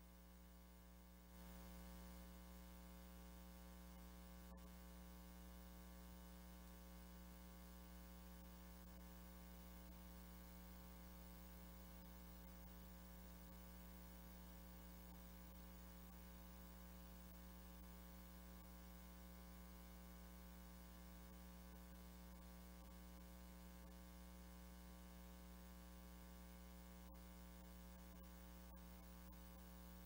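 Near silence: a faint, steady electrical hum with a low hiss and a few faint clicks.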